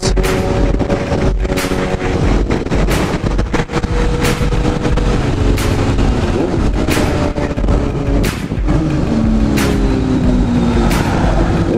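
Yamaha FZ-09's inline three-cylinder engine running at cruising speed under heavy wind rush on the microphone, with short sharp knocks every second or so. Its pitch falls late on as the bike slows.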